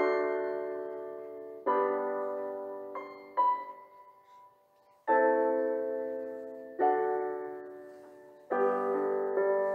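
Slow solo piano background music: chords struck every second or two and left to ring and fade, with a near-silent pause about four to five seconds in and quicker notes near the end.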